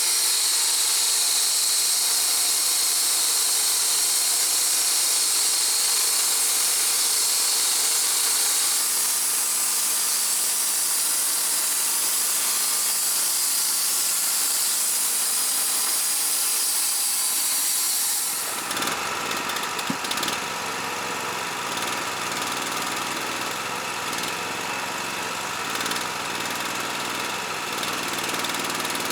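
Wood-Mizer LT35 sawmill running, its band blade cutting through a log with a loud, steady high hiss over the engine. About two-thirds of the way through, the hiss stops abruptly and the engine runs on alone.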